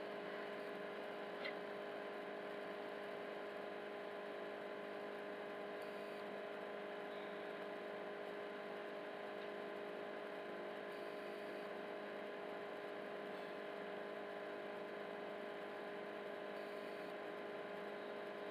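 Faint, steady electrical hum over a soft hiss, with one small click about a second and a half in.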